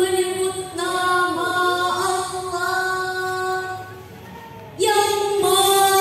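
A girl singing unaccompanied into a microphone, a long, ornamented melody of held, wavering notes. She breaks off about four seconds in and picks up again just before five seconds.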